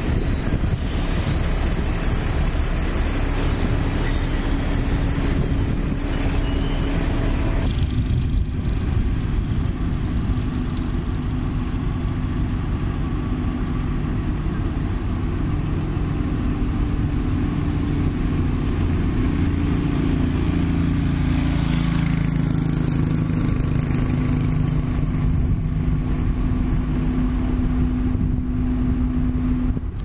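Heavy diesel machinery running steadily: first a dump truck and an asphalt paver working as asphalt is tipped into the paver's hopper, then, from about eight seconds in, the diesel engine of a Sakai TS205 pneumatic tyre roller humming as it rolls along.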